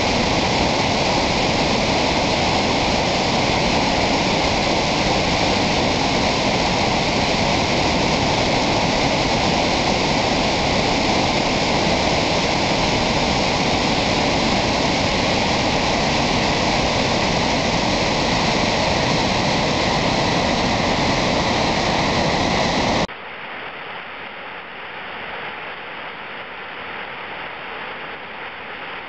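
River water pouring over a dam spillway and crashing into whitewater below, a loud, steady rush. About 23 seconds in it cuts abruptly to a quieter, thinner rush of a waterfall spilling over rock ledges.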